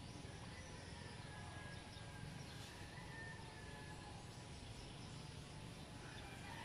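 Faint outdoor ambience: a steady low background noise with a few thin, drawn-out high calls from distant birds.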